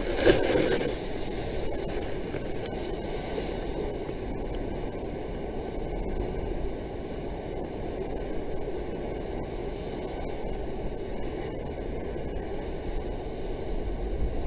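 Steady rushing roar of a rough sea and wind, with a louder surge about a second long near the start as a wave breaks against the sea wall and throws spray.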